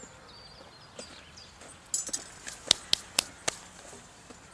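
A handful of sharp clicks and knocks, about six in a second and a half around the middle, from a metal stovetop moka pot and its coffee basket being handled and set against each other.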